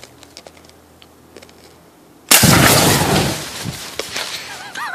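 An aerosol can of hair spray, hit by a pellet, bursting and flaring up in the fire: a sudden loud burst a little over two seconds in, dying away over a second or so.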